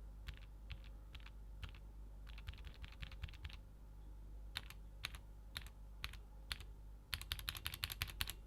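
Keystrokes on Gateron G Pro 2.0 Red linear mechanical switches. A few separate presses alternate with two quick runs of typing, and the run near the end is the loudest.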